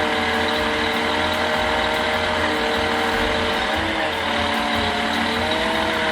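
Heavy logging truck's diesel engine running under load, a steady low rumble whose pitch shifts down and back up a couple of times as the revs change.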